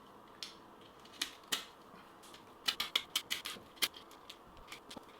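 Victorinox pocket knife blade carving wood, making short, sharp cutting clicks as chips come off. A few scattered cuts come first, then a quick run of about eight cuts about three seconds in.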